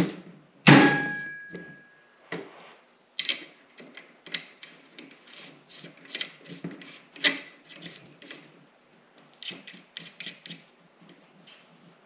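A metal hand tool clanks down onto other tools, ringing briefly, about a second in. This is followed by irregular small clicks and taps of steel hydraulic fittings being handled and turned by hand in a single-point hydraulic connector block.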